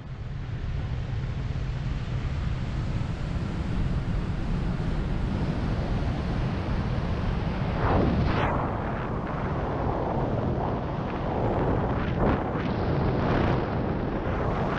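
Wind rushing past a GoPro's microphone during a descent in flight, with the engine throttled back to idle. A steady rush of wind noise swells louder about eight seconds in and again a little after twelve seconds.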